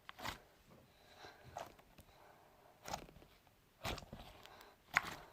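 Slime being squished and stretched by hand, giving faint wet crackles and pops about five times at uneven intervals.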